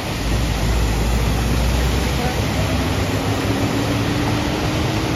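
Vehicles driving through a flooded road: a steady rush of water thrown up by the tyres, with a deep rumble in the first half and a Toyota pickup's engine tone rising slowly in the second half as it ploughs through the water.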